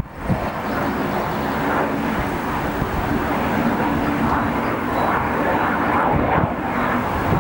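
Jet noise from an Antonov An-158 climbing away: its two Progress D-436-148 turbofans give a steady rushing rumble with a faint low hum underneath.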